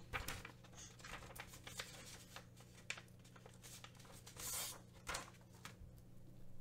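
Quiet desk handling noise: faint rustles and small clicks, with a short louder rustle about four and a half seconds in, over a steady low hum.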